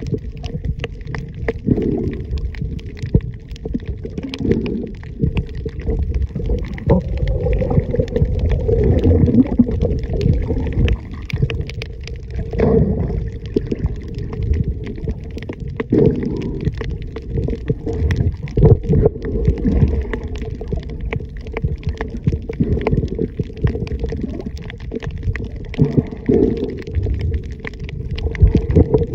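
Muffled underwater rumbling and sloshing from water moving around a submerged camera, uneven in level, with many short sharp clicks scattered through it.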